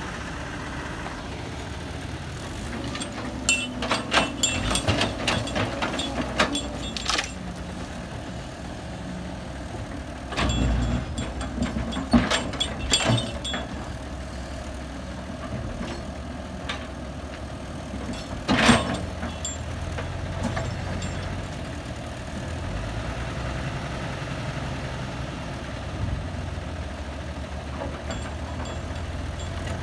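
Heavy earthmoving machine's engine running steadily at a low rumble, broken by several clusters of knocks and clanks and one loud sharp bang about two-thirds of the way through.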